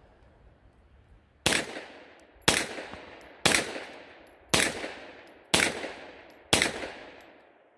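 Extar EP9 9mm firing six semi-automatic shots, about one a second, each sharp crack trailing off in a short echo.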